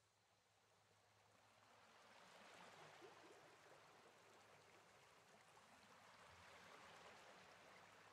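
Near silence: a faint, even hiss that slowly grows louder.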